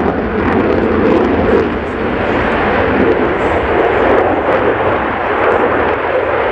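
F-16C fighter's single turbofan jet engine, running loud and steady as the jet pulls a hard, high-g turn overhead.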